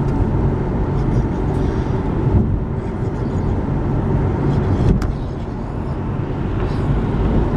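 Car in motion: steady engine and road rumble, with a single short click about five seconds in.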